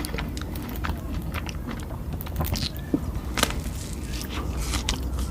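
Close-up eating sounds: irregular crunches and wet mouth clicks of someone chewing food, over a low steady hum.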